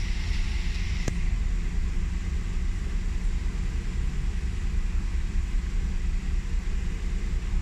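Car engine idling, a steady low rumble heard from inside the cabin, with a faint hiss at the start and a single sharp click about a second in.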